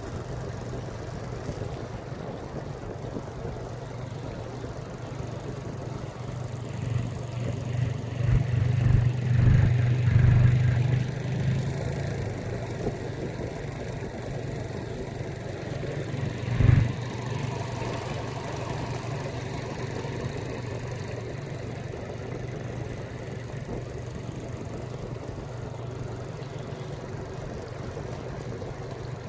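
15 hp Hidea outboard motor running steadily, a low even drone, with the boat under way. Several louder thumps come about 7 to 11 seconds in, and one sharp knock about 17 seconds in.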